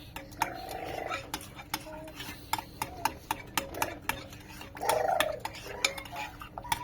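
Utensil stirring and clinking against a kitchen bowl or pot: a steady run of sharp clicks, about three a second. Two brief squeaky pitched sounds come about half a second in and again near five seconds; the second is the loudest.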